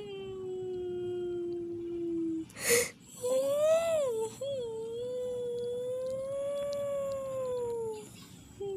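Puppy whining and crying in long, drawn-out high whines. A short sharp yelp comes a little under three seconds in, followed by a whine that rises and falls and then another long steady whine.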